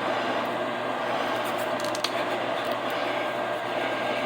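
Microwave oven running with a steady hum and hiss, with a few faint ticks on top.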